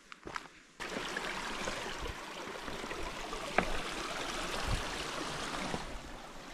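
River water running, a steady rushing that starts abruptly about a second in. Before it, a few soft footsteps.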